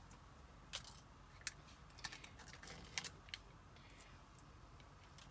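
Faint, scattered light clicks and taps, about half a dozen, from a jar of white stencil paste and its lid being handled while it is opened.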